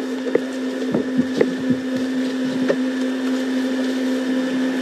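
A steady hum runs throughout, with a handful of sharp cracks and snaps scattered through the first three seconds.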